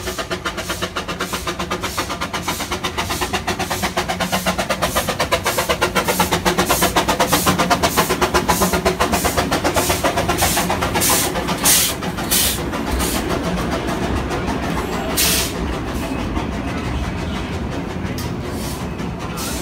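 Narrow-gauge saddle-tank steam locomotive passing at close range with a fast, even rhythmic beat that grows louder as it comes by. A few sharp hisses or knocks follow, then the steadier rolling of the coaches behind it.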